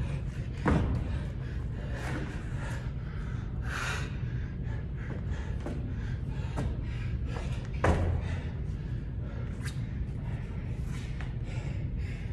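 Two heavy thumps on a rubber gym floor during a workout, about seven seconds apart, over a steady low room hum.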